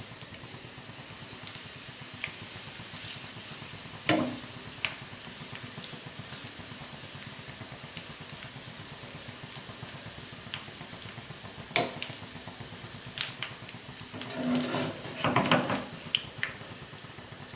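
Hot oil sizzling and bubbling steadily around a nest of omapodi (gram-flour sev) frying in a kadai. The bubbling shows it is still cooking; it is ready to lift out once the bubbles settle. A perforated steel skimmer clicks against the pan a few times, sharpest about 4 and 12 seconds in, with a louder clatter near the end as the nest is turned.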